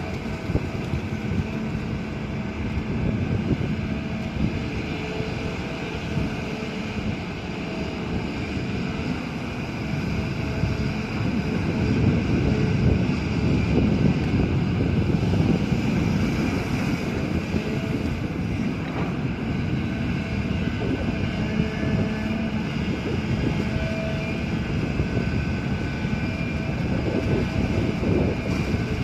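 Excavator's diesel engine running with a steady drone, growing somewhat louder from about ten seconds in.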